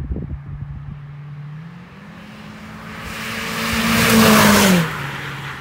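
2014 Ford Focus SE with its muffler cut off driving past: the exhaust note of its four-cylinder engine rises in pitch as it accelerates, grows loudest with a rush of tyre noise about four seconds in, then drops in pitch and fades as the car goes away.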